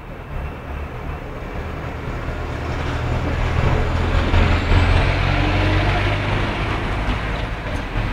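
Heavy road vehicle driving past, its low engine hum and road noise growing louder to a peak about halfway through and then fading.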